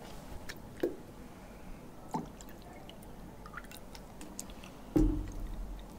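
Water poured from a plastic bottle into a glass, with faint clicks and knocks as the bottle and glass are handled, and a louder dull thump about five seconds in.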